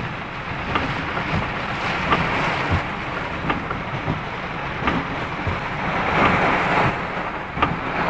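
Typhoon wind and heavy rain: a steady rushing hiss that swells and eases, with scattered sharp taps.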